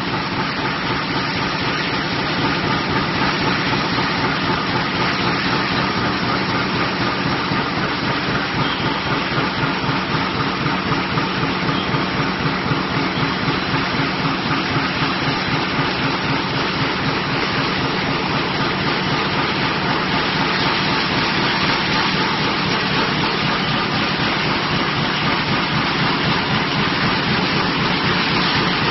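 Mini coil slitting line running: drive motors and rollers turn as steel strip unwinds from the uncoiler and feeds through the rotary slitter knives, a steady mechanical running noise with a fast rattle underneath.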